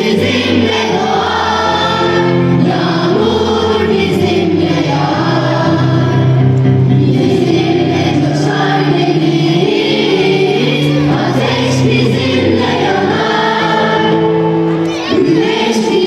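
Choir singing a song over instrumental accompaniment with a steady bass line.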